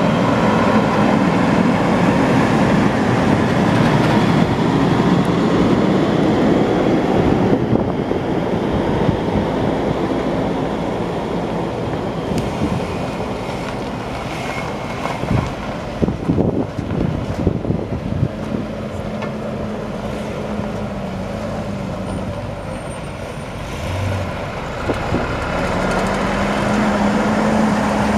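A 1988 Ford F350's 5.8-litre V8 gas engine running, loudest for the first several seconds and then a little quieter, with a short cluster of knocks about two-thirds of the way through.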